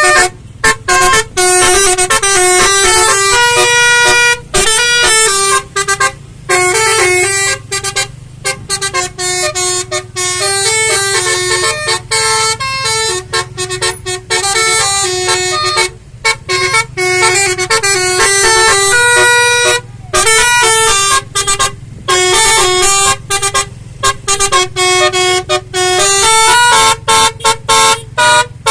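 Basuri 'telolet' multi-tone vehicle horn playing a melody: quick runs of stepped horn notes broken by short pauses, over a steady low hum.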